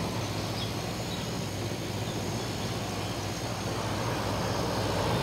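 Window air conditioner with a Samsung compressor running: a steady low compressor hum under the even rush of the condenser fan.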